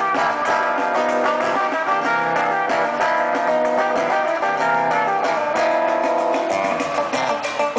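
Samba-rock music playing, led by a strummed guitar over a steady beat.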